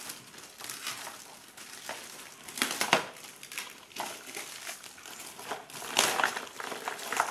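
Packaging being opened and crumpled by hand: irregular crinkling and crackling, loudest about a third of the way in and again near the end.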